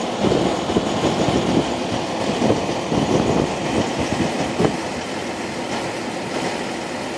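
Wind gusting over the microphone through an open semi-truck cab window, an uneven rushing, with the truck's diesel engine idling underneath.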